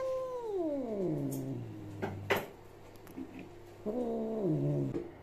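A long-haired grey tabby cat yowls in protest at being touched and held. It gives two drawn-out moaning calls that slide down in pitch, the first at the start and the second near the end, with two sharp clicks in between.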